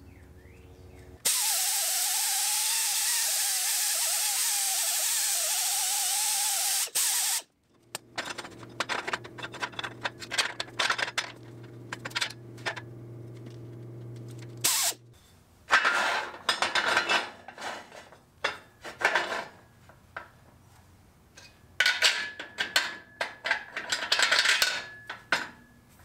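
MIG welder laying a tack weld on a steel tube joint: an even arc hiss for about six seconds, starting about a second in and cutting off sharply. Then a low steady hum with light tapping, followed by metal parts clanking and tapping.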